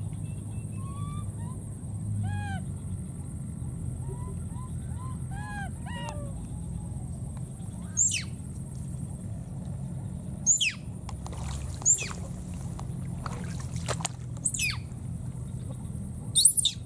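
A baby macaque calling: first a run of short arched coos, then from about halfway several shrill squeals that fall steeply in pitch, the loudest near the end.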